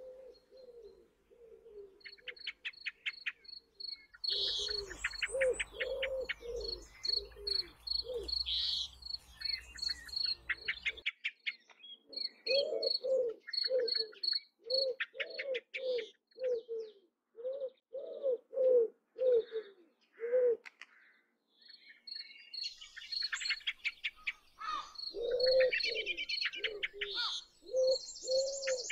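Wild birds calling: a low cooing note repeated about twice a second, with high, evenly spaced chirps and busier trills of small birds above it, the trills strongest near the end.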